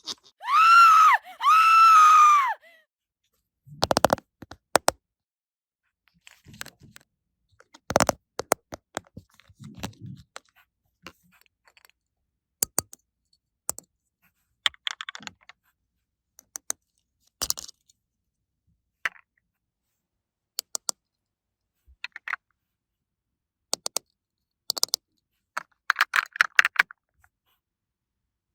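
Small plastic toy pieces clicking and tapping as they are handled and set down, in scattered single clicks and short clusters with pauses between. Near the start a short pitched sound rises and falls twice.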